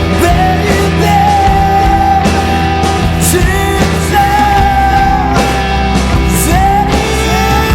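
Rock music with a steady bass and a held, sung melody line.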